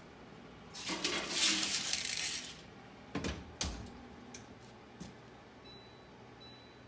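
A foil-lined baking pan with a wire rack slid onto the rack of a stainless Samsung oven, a scraping metal rattle for about two seconds. Then the oven door knocks shut twice in quick succession, followed by a couple of light ticks.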